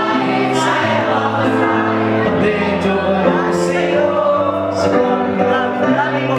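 Music: a sung melody over sustained chords.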